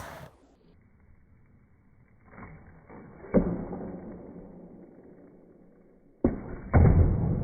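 A few hard knocks or slams, one about three seconds in and two close together near the end, each dying away slowly, heard through a muffled, narrow-sounding recording.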